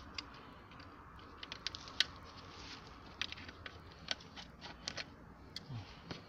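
Scattered small clicks and taps, irregular and sharp, of pliers and hard plastic engine-bay parts being handled as hoses are worked loose from a car's air filter housing.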